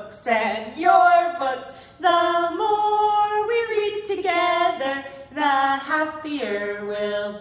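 Two women singing a children's song together, unaccompanied, in a bright, cheerful style, ending on a long held note.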